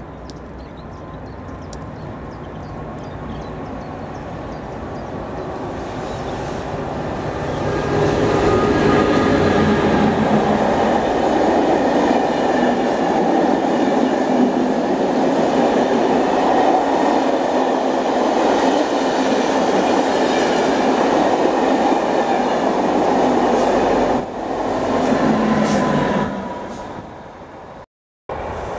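Locomotive-hauled passenger train on an electrified line approaching, growing louder over the first eight seconds, then its coaches rolling past close by with steady wheel-on-rail noise and faint steady tones. The sound fades a few seconds before the end and then cuts off suddenly.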